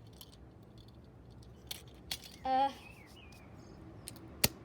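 Quiet room with a few scattered sharp clicks and taps as broken pieces of a boiler control panel are handled, and a brief voiced sound about halfway through.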